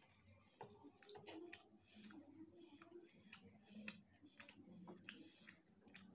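Faint close-miked eating sounds of fried rice eaten by hand: irregular soft clicks and smacks, about three a second, the sharpest one near four seconds in.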